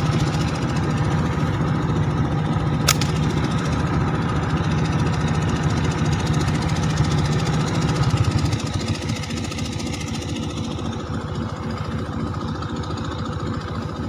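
A nearby engine running steadily, which drops in level about eight and a half seconds in. There is one sharp click about three seconds in.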